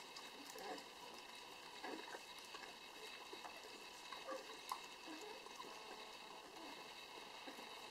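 Schnauzer puppies and an adult schnauzer lapping and eating soft, wet food from a plate: faint, irregular slurps and smacks.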